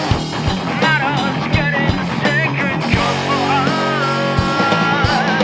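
Rock band playing an instrumental passage: a lead guitar line with bends and vibrato over bass and steady drums, holding one long note about two-thirds of the way through.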